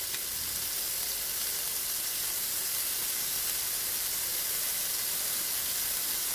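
Butter sizzling as it melts in a hot wok, a steady, even hiss ready for sautéing.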